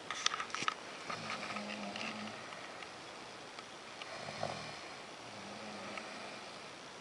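People snoring in their sleep: three low snores, each about a second long and a couple of seconds apart. A quick run of sharp clicks comes just after the start.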